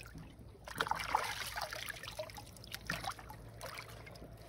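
Water trickling and splashing with scattered small clicks and knocks, loudest from about a second in and softer in the second half.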